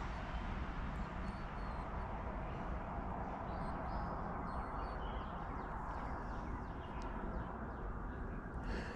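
Outdoor ambience: a steady low background hiss and rumble, with faint, short bird chirps scattered throughout.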